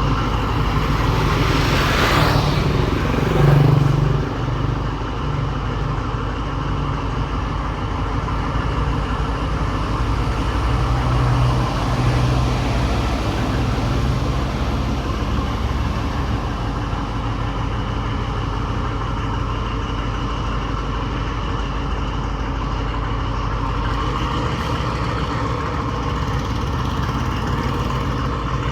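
An engine running steadily at a constant speed, with a brief louder sound falling in pitch about two to four seconds in.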